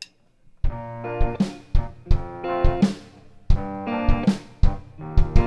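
Live band launching into the intro of a pop ballad cover: drum kit with kick and cymbal hits, bass and sustained chords all come in together under a second in.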